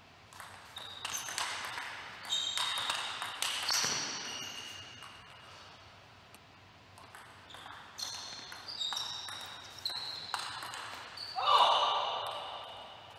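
Table tennis rallies: quick runs of sharp ball clicks off bats and table, each with a brief ringing ping in the hall, in two points separated by a pause. A short, louder burst comes near the end.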